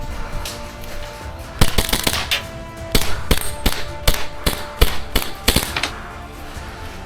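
Airsoft guns firing a rapid, uneven string of sharp shots, about a dozen and a half in loose bunches over roughly four seconds, starting a second and a half in.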